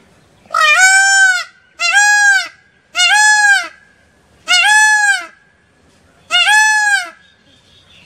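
Male Indian peafowl (peacock) calling: five loud calls in a row, each just under a second long, arching up then down in pitch, about a second apart.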